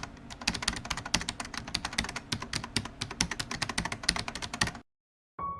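Keyboard typing: a rapid, uneven run of key clicks that stops abruptly a little before the end.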